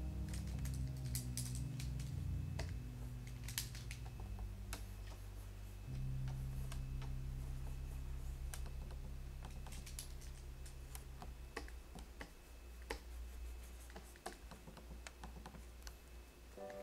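Soft background music of low held notes that shift every second or two and die away about two-thirds of the way through, with scattered light clicks of computer keyboard keys throughout.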